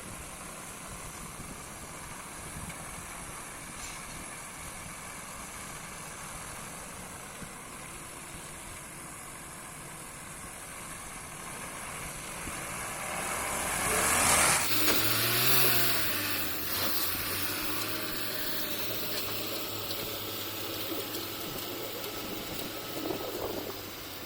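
Engine of a borewell drilling rig running steadily. It swells about twelve seconds in, with a loud rush of noise about fourteen seconds in, then settles back to a steady run.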